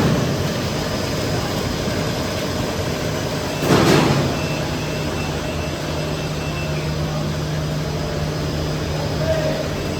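Four-layer air bubble film lamination machine running with a steady, dense mechanical noise and a low hum, broken by one short, loud rushing burst about four seconds in.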